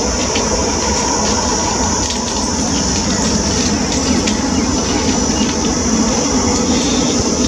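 Twin GE90 turbofans of a Boeing 777-300ER running steadily at taxi power as the jet rolls onto the runway.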